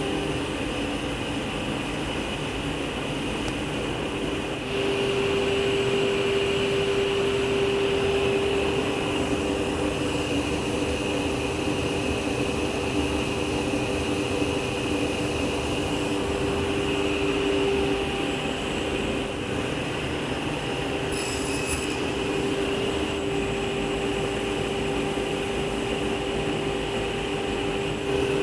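Martin T60 sliding table saw running steadily through a multi-pass grooving cut, a constant hum that gets louder about five seconds in. A brief click comes near the twenty-two-second mark.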